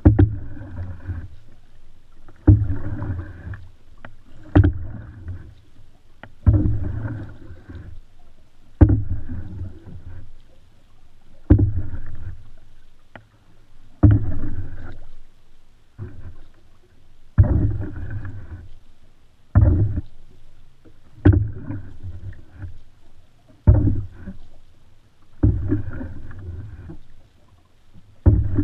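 Canoe paddle strokes in an open canoe, about one every two seconds, each a sharp knock followed by about a second of splashing water.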